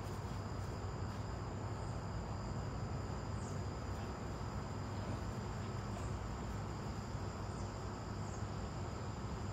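Steady insect chorus: a constant high-pitched drone on two pitches that never lets up, over a low rumble, with a few faint short high chirps.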